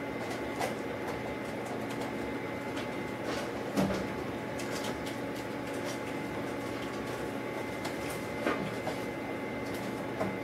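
Steady low room hum with a few faint, soft clicks and knocks; the clearest comes about four seconds in.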